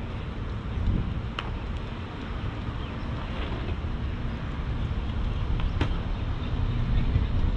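Wind buffeting the microphone, a steady low rumble, with two short sharp clicks, about a second and a half in and near six seconds.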